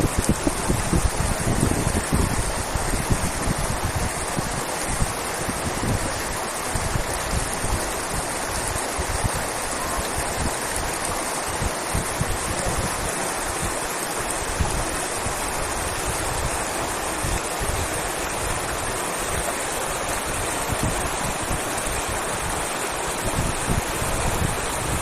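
Steady rushing of a fast-flowing river, with wind buffeting the microphone in gusts, strongest in the first couple of seconds and again near the end.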